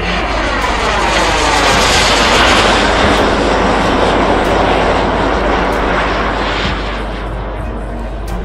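Radio-controlled model jet flying past overhead, a rushing engine hiss that swells to its loudest about two to three seconds in and then fades as it moves away.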